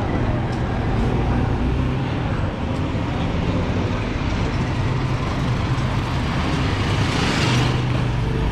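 Road traffic with a steady engine hum, and a rushing swell of noise about seven seconds in.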